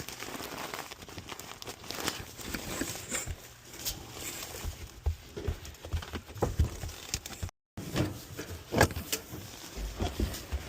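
Irregular clicks, knocks and rustles of hand work: tools and parts being handled and set down. The sound drops out completely for a moment about seven and a half seconds in.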